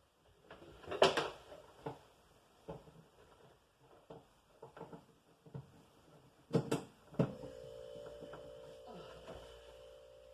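Several knocks and bumps as a wine cooler is pushed and shifted into its opening, the loudest about a second in and a quick cluster near seven seconds. Right after the last knock a steady hum starts and holds: the wine cooler running.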